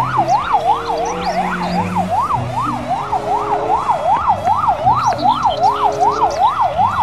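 Police car siren in a fast yelp, its pitch sweeping up and down about three times a second.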